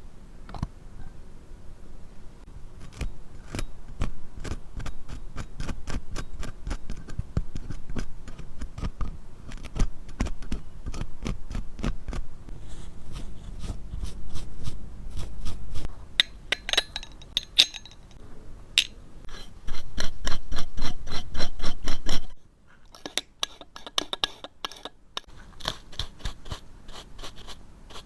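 Small hand tools scraping and clicking against a wristwatch's case and parts during a repair, in a run of quick clicks and scrapes. About two-thirds through comes a louder, denser stretch of rapid scratching that cuts off suddenly, followed by lighter scratching.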